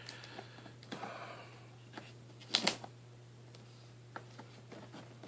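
Faint handling of a cardboard laptop box being opened: soft rustling, then a sharp double click about two and a half seconds in and a few light ticks near the end.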